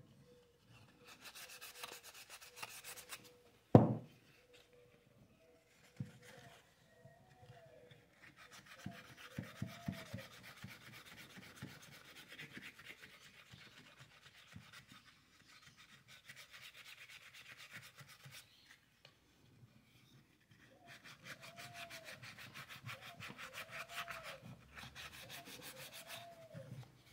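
Sandpaper rubbing on a carved wooden figure in spells of quick scratchy strokes, smoothing it before painting. A sharp knock about four seconds in, and faint rising-and-falling squeaks now and then.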